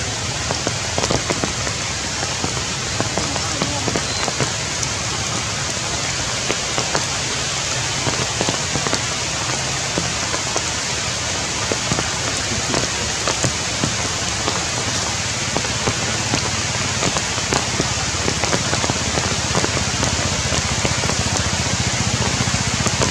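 Heavy rain falling steadily on tree leaves: an even hiss with many individual drops ticking sharply through it.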